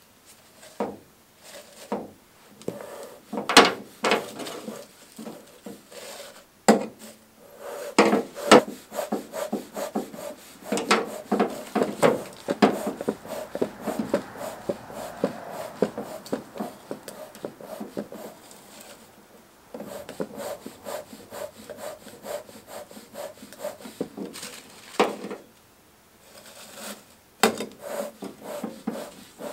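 Bee smoker being lit and packed: newspaper and dry grass rustling as they are pushed into the tin fuel canister, with irregular knocks and scrapes against the metal and the bellows.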